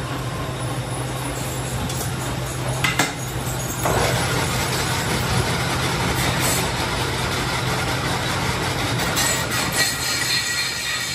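Metal lathe running with a tractor brake drum turning in its chuck: a steady low motor hum. About four seconds in, a louder rasping, scraping noise from the work on the spinning drum joins it.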